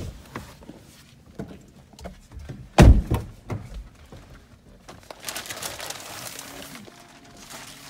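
A pickup truck door shut with one loud thunk about three seconds in, among smaller handling knocks, then softer rustling.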